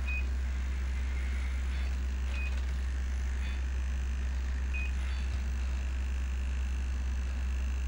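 Self-balancing robot going into its resting state: three short high electronic beeps about two and a half seconds apart over a steady low hum.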